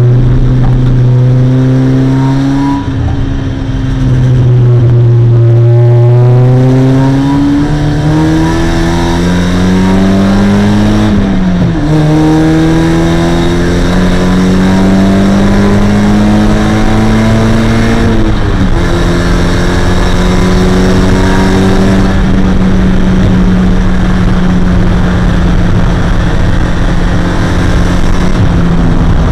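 Mazda MX-5's 1.6-litre four-cylinder engine running hard on track, heard onboard. The revs dip about three seconds in, then climb and drop back sharply twice, about eleven and eighteen seconds in, before holding a steady note over road and wind noise.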